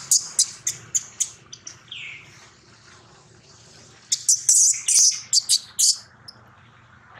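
Newborn macaque screaming in distress as an adult tugs it away from its mother: short, shrill squeals in quick series. A run of them comes in the first second or so, and a denser run comes about four seconds in.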